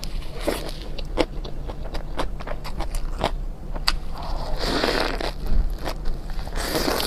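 A person eating noodles and eggs up close: a run of quick wet mouth clicks and smacks of chewing, with two longer slurps, one past the middle and one near the end.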